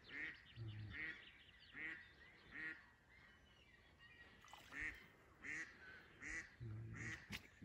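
A live decoy duck quacking, a run of short calls a little under one a second with a pause about halfway, calling to draw in wild ducks.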